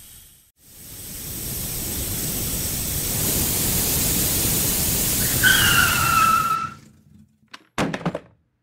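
Cartoon sound effect of a wheeled robot speeding in: a building rushing noise that ends in a skidding squeal falling slightly in pitch, then cuts off, followed by a short clatter as it crashes onto the table and spills groceries.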